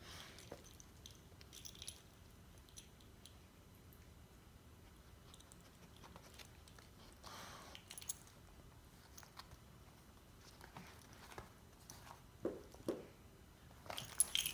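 Dogs play-mouthing: quiet wet chewing and biting noises with scattered soft clicks as a pit bull puppy nips at an adult pit bull's face. There are two short louder sounds near the end, then a brief jingle of a collar tag.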